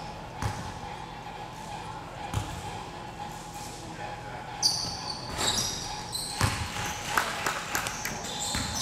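Basketball game sounds: a ball bouncing on the court and sneakers squeaking, under indistinct voices of players and spectators echoing in a large hall. The squeaks bunch up about halfway through.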